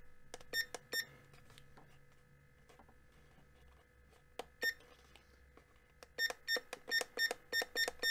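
Digital alarm clock beeping with each step as its buttons are used to set the time: a few beeps in the first second, two more about four and a half seconds in, then a fast, even run of about five beeps a second from about six seconds in as the digits advance.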